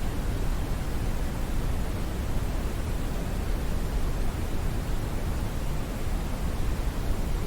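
Smoothed brown noise: a steady, even rush, weighted to the low end and softer in the highs, with no events or changes.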